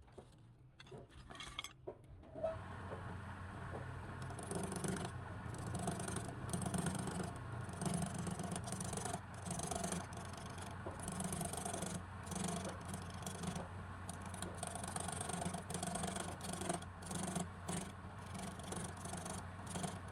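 Wood lathe running with a turning chisel scraping the spinning wood in repeated strokes, over a steady motor hum; it starts about two seconds in after a few light clinks.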